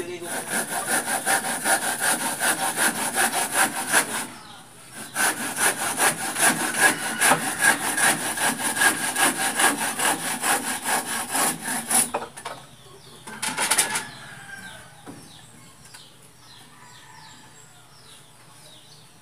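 Handsaw cutting wood with quick, even back-and-forth strokes. It pauses briefly about four seconds in and stops about twelve seconds in, followed by one short burst of strokes a little later and then quiet.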